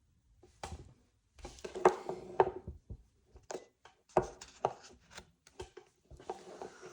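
Small hard objects handled on a tabletop: a string of sharp clicks and knocks with rustling between them, the loudest about two seconds in.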